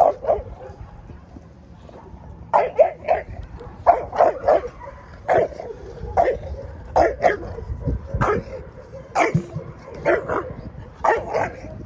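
A dog barking repeatedly at an overturned stainless steel water bowl: short barks in quick runs of two to four, with pauses between the runs.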